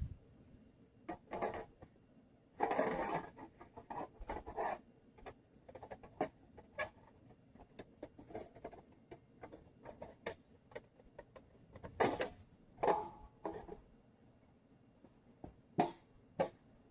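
Thin titanium wood-stove panels being handled and fitted together: scattered light clinks and knocks, a short scrape about three seconds in, and a few louder knocks later on.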